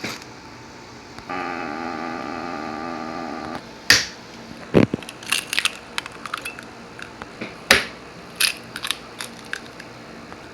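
A wavering pitched sound lasts about two seconds, starting a second in. Then come scattered sharp clicks and knocks of eggs being cracked and handled in a glass mason jar.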